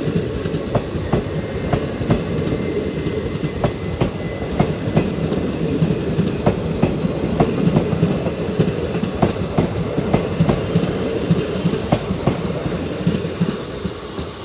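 Indian Railways passenger coaches rolling past close by: a steady rumble with the wheels clacking in a regular rhythm, about two to three clacks a second. The sound starts to fall away near the end as the last coach goes by.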